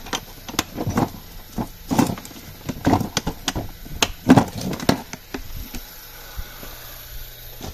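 Hard plastic Milwaukee PACKOUT organizer cases knocking and clacking as they are handled and set onto their mounts: a run of irregular sharp knocks that thins out after about five seconds.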